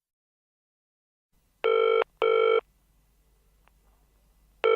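Telephone ringing with a double ring signalling an incoming call: two short rings close together about a second and a half in, then the next ring starting near the end, over a faint low hum.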